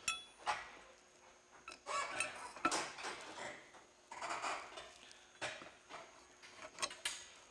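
Small steel bolts and a metal mounting plate being handled: scattered light clinks and clicks with short bursts of rustling and scraping as flathead bolts are set into the plate's countersunk holes.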